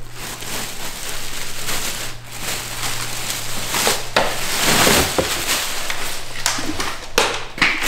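Clear plastic packing wrap crinkling and rustling as a new wheel is unwrapped in its cardboard box, loudest about five seconds in.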